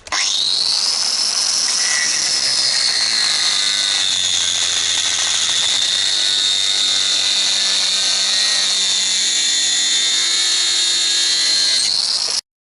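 A power tool running at speed with a high-pitched whine over a hiss of noise. The whine dips slightly in pitch over the first few seconds, then holds steady until the sound cuts off suddenly near the end.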